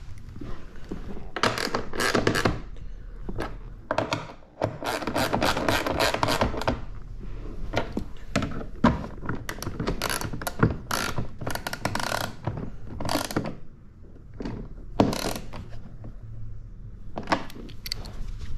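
Ratchet wrench clicking in repeated short runs, with pauses between, as bolts on a jet ski's panel are turned by hand.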